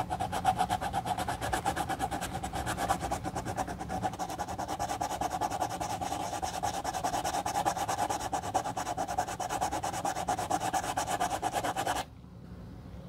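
Small piece of sandpaper rubbed in quick, short back-and-forth strokes over the scuffed leather toe of a white sneaker: a steady, rhythmic rasping scratch that sands down the scuffed, lifted leather. It stops suddenly near the end.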